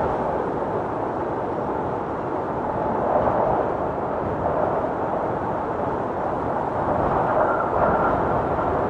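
Tornado wind rushing steadily with a deep rushing noise, with a faint high whistling tone coming in near the end.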